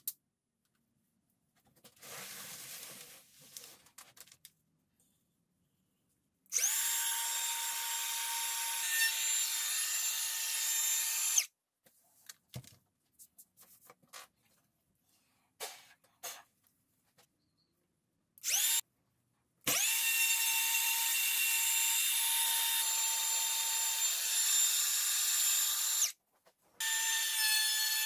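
Cordless compact router cutting into a hardwood cutting board, running in three stretches of a steady high whine, each of the first two starting with a quick rising spin-up. Short quiet gaps between the runs hold a few light knocks.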